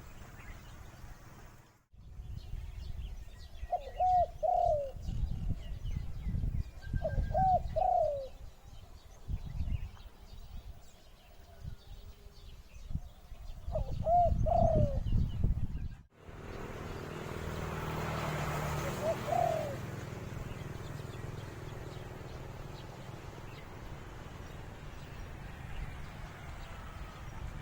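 A dove cooing in short phrases of two or three low notes, repeated several times, over a low rumble of handling and wind noise.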